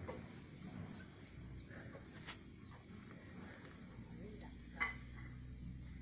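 Steady high-pitched chorus of insects, with a few faint clicks and one sharp click about five seconds in.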